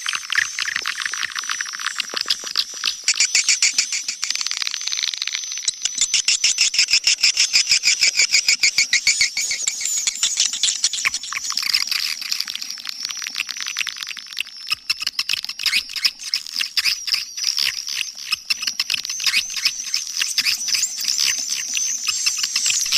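Swiftlet lure-call recording: a dense chorus of high, rapid twittering chirps and clicks over a thin steady high tone, with runs of louder fast pulses a few seconds in.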